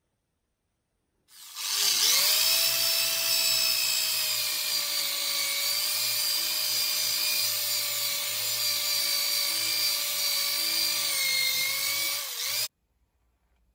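Electric drill spinning a wire wheel against a rusty chromed steel bicycle rim, scrubbing off the rust. The drill starts about a second in and runs at a steady whine with a rasping scrub, then stops abruptly about a second before the end.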